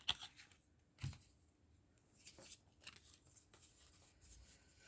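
Faint rustling and soft clicks of trading cards being handled, with one slightly louder soft knock about a second in.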